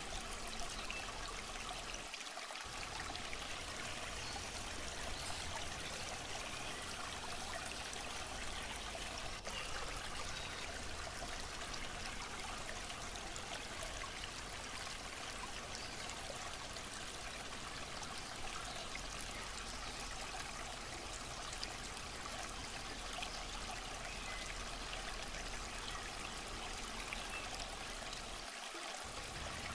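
Running water trickling steadily, an even, unbroken rush.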